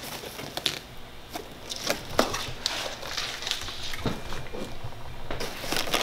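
Handling noise from unpacking: foam packing inserts and a cardboard box rustling, with scattered light knocks and clicks as parts are lifted out and set down.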